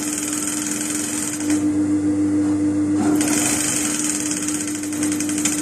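JUKI industrial sewing machine stitching in two runs: the first stops about a second and a half in, the second starts about three seconds in. A steady hum continues underneath.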